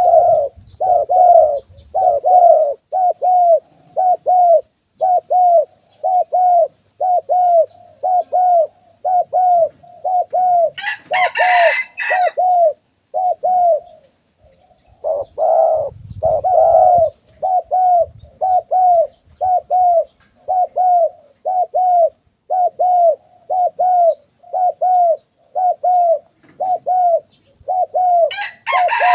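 Spotted doves bow-cooing at each other in a cooing contest: a steady run of short, downward-curving coos, about two a second, with a short pause near the middle. Twice a brief, harsher burst cuts in, about eleven seconds in and again near the end.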